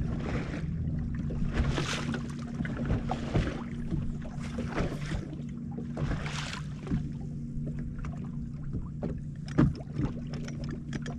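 Small waves slapping and splashing against the hull of a bass boat every second or two, over a steady low electric hum from the bow-mounted trolling motor.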